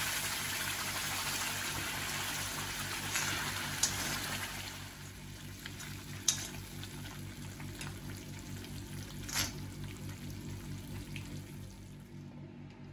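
A hot tempering of dried red chillies and curry leaves sizzling in the mango curry in an iron kadai. The sizzle dies down after about four seconds. A metal spoon stirring the curry clinks against the pan three times.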